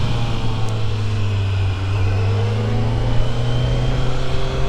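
Kawasaki Z900's inline-four engine running steadily while the motorcycle is ridden, its pitch easing down slightly about two seconds in and then holding.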